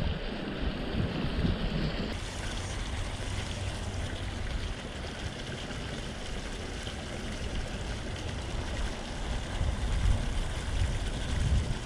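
Shallow rocky creek running: a steady babble of water over stones, with a low gusty rumble underneath.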